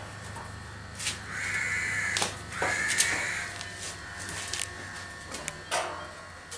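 A crow cawing twice, each harsh call drawn out to nearly a second, over a steady low machine hum, with a few short clicks and knocks.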